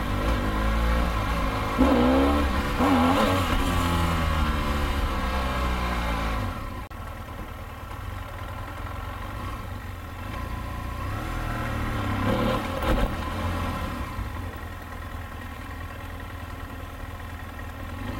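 BMW F800 parallel-twin motorcycle engine revving, its pitch rising and falling, then dropping suddenly about seven seconds in to a quieter, steady run, with a brief louder rev near the end.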